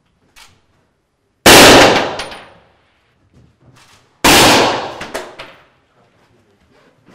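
Two shots from a suppressed Kalashnikov SVCh-308 semi-automatic sniper rifle in 7.62×51 mm (.308), about three seconds apart. Each bang rings on and dies away over about a second.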